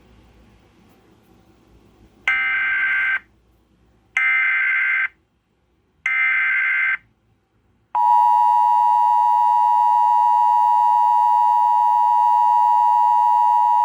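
Emergency Alert System signal on cable TV: three short bursts of screeching digital SAME header data about two seconds apart, then a loud, steady two-tone EAS attention signal starts about eight seconds in and holds. It marks the start of a broadcast severe thunderstorm warning.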